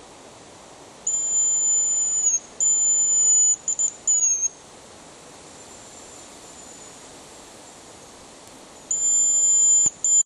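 A dog whistle blown in a series of high, steady blasts: two long ones, then a few short pips, the last sliding down in pitch, and after a pause of about four seconds one more long blast and a short one. It is a recall signal calling the malamutes back.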